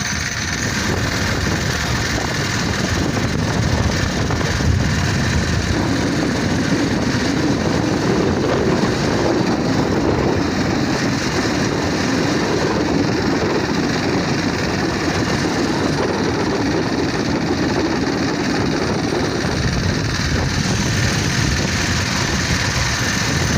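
Predator 79cc single-cylinder four-stroke engine on a motorized bicycle, running continuously under way. Its note strengthens about six seconds in and wavers with the throttle.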